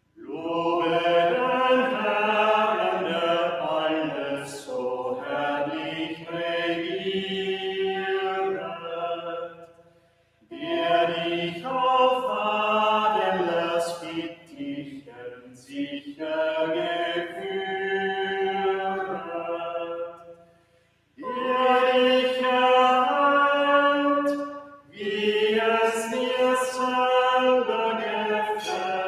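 A small mixed group of singers singing a hymn unaccompanied, in long phrases of about ten seconds with brief pauses for breath between them.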